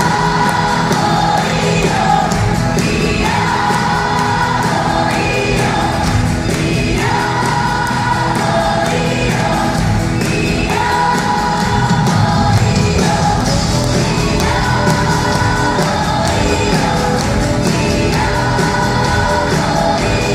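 Live rock concert music over an arena sound system: band playing with sung melody lines and many voices singing together.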